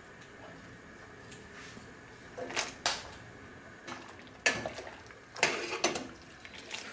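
A wire-mesh skimmer clinking and knocking against a metal pot as it stirs snow peas in blanching water, about eight sharp knocks starting about two and a half seconds in.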